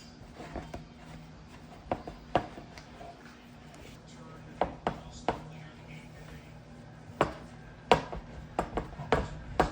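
Irregular sharp knocks of kitchen food preparation, a knife or utensil striking a cutting board, about a dozen spread unevenly and coming closer together in the second half.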